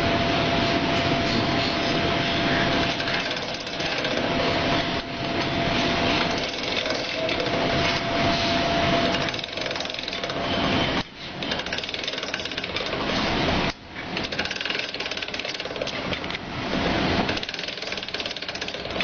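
Bamboo skewer shaving machine running with a dense, continuous rattling clatter. A thin steady hum sounds through the first half and stops about halfway, and the clatter drops briefly twice just after.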